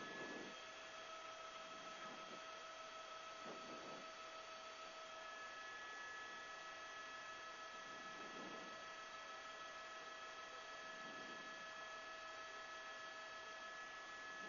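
Faint, steady electrical hum and hiss with several fixed high tones, from an open broadcast audio line; a few soft swells of lower noise come and go.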